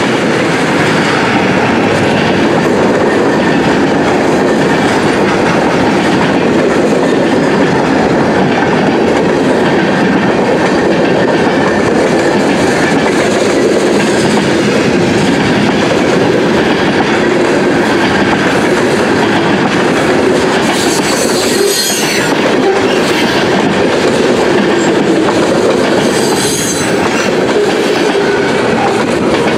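Freight train cars rolling past close by: a loud, steady rumble of steel wheels with clickety-clack over the rail joints, and brief high wheel squeals about two-thirds of the way through and again near the end.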